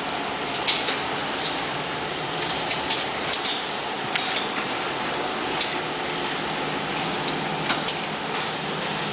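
Scattered sharp clicks of cartridges being pressed into handgun magazines, over a steady background rush.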